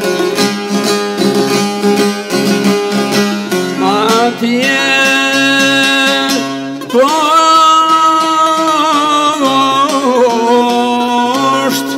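Albanian folk song: a man singing long, held, wavering notes over a plucked long-necked lute. The lute plays alone at first, and the voice comes in with a rising slide about four seconds in.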